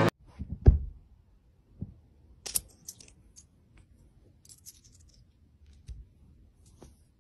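A cat pawing at a fabric sofa cushion: a couple of soft thumps about half a second in, then light, scattered scratches and clicks.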